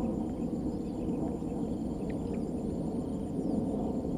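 Steady outdoor background noise: an even low rumble, with a faint high steady whine above it.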